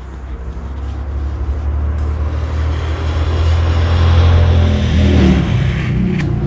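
A motor or engine running with a low hum that grows louder over the first few seconds, its pitch shifting about five seconds in.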